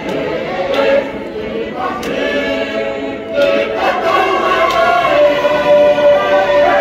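A choir of many voices singing a Tongan dance song, with a long held note near the end. A few sharp hand claps come in between.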